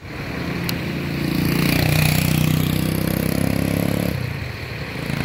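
A motor vehicle's engine running close by in street traffic. It grows louder over the first two seconds and drops away about four seconds in.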